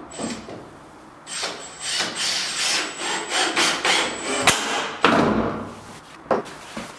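Cordless drill-driver running in a few short pulls with a thin high motor whine, driving a screw into the wooden door frame, ending in a sharp click about four and a half seconds in. A shorter rustling knock and a couple of clicks follow.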